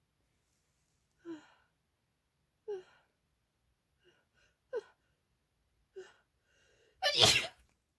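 A woman's short catching breaths, four of them about a second and a half apart, building up to one loud sneeze near the end. She is sneezing with a cold.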